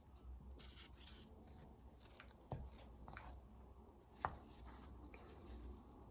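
Quiet handling of small acrylic paint containers being sorted: faint rubbing and shuffling, with two small clicks, one about two and a half seconds in and a sharper one a couple of seconds later.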